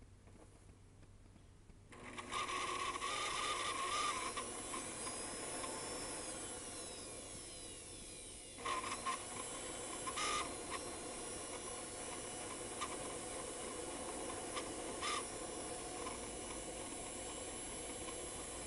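Shop vac used as a forge blower switches on about two seconds in and runs steadily with a motor whine and rushing air. A few short knocks come through over it.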